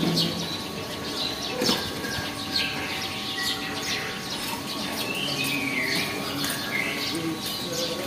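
Hill mynas calling: a scatter of short chirps and whistles, including a longer falling whistle about five to six seconds in.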